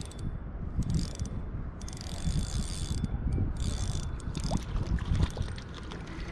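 Spinning reel being cranked to bring in a hooked fish: the reel's gears whir in spells of about a second, with short pauses between turns.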